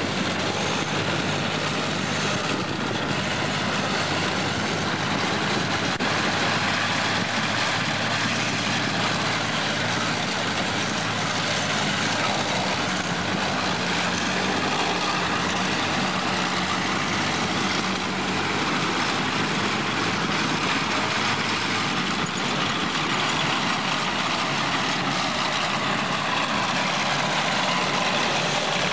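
BMP-1 infantry fighting vehicle driving off-road, its UTD-20 V6 diesel engine running steadily under load together with the noise of its tracks.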